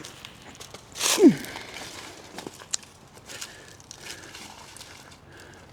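Footsteps picking over creek rocks and through leaves and brush, with scattered light clicks and scuffs. About a second in, a brief loud sound drops sharply in pitch.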